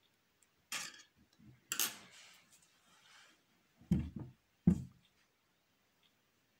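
Hands handling a crocheted doll on a wooden tabletop: a couple of brushing rustles, then two dull knocks close together, the loudest sounds.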